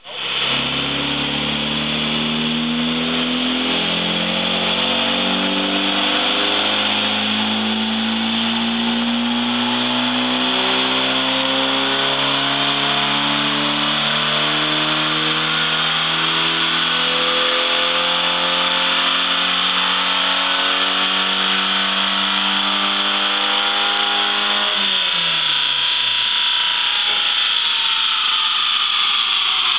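1995 VW Jetta's built 2.0 crossflow four-cylinder engine at full throttle under load on a Dynojet chassis dyno. Its revs climb steadily for about 25 seconds, then fall away quickly as the throttle is released near the end of the pull.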